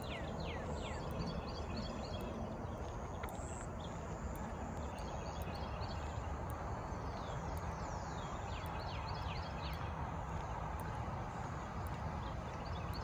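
Outdoor trail ambience: a steady low rumble of road traffic, with birds calling in short runs of quick falling notes every few seconds.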